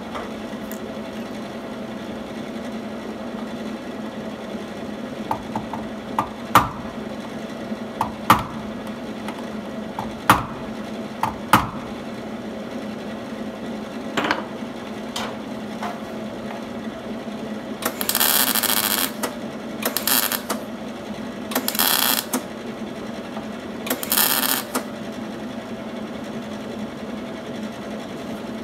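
About six sharp hammer blows on sheet metal, then four short bursts of MIG welding crackle, each under a second, as the patch panel is tack-welded. A steady low hum runs underneath.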